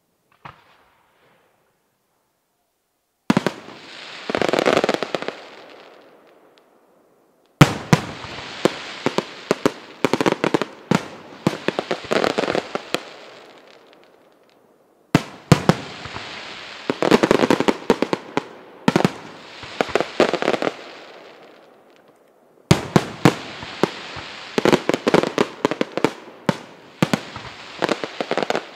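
Aerial firework shells bursting overhead. After about three seconds of near silence broken by a single small pop, there are four waves about seven seconds apart. Each opens with a sharp bang and runs into a rapid cluster of smaller cracks that fades over several seconds.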